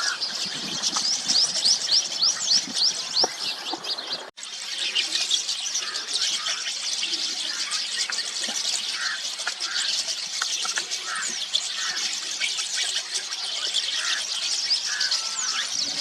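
A flock of rosy starlings calling together: a dense, continuous chatter of short squeaky chirps and quick whistled sweeps, with a momentary drop-out about four seconds in.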